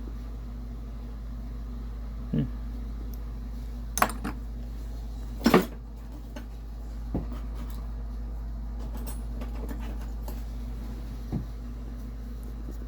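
Small metal hand tools clinking and knocking as they are picked up and set down, a handful of separate knocks, the loudest a quick double knock about halfway through. A steady low hum runs underneath.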